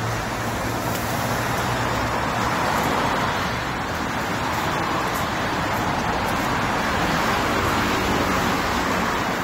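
Road traffic on a city street: a steady rush of passing vehicles that swells and eases as they go by.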